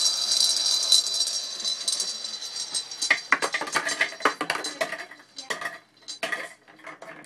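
Marbles rolling and rattling round a bowl in a dense, continuous clatter. From about three seconds in they drop through the hole one by one with separate sharp clicks and clacks, which thin out towards the end.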